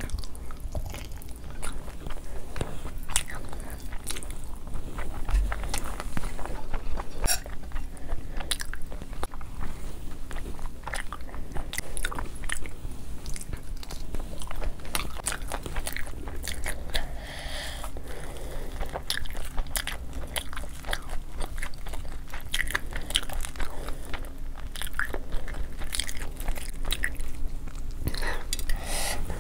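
Close-miked eating sounds: a person chewing and biting mouthfuls of biryani with wet mouth clicks and smacks, and crisp crunches.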